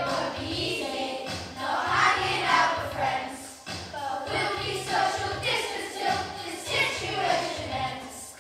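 A group of children singing a rock-and-roll song together over a backing track with a steady bass line.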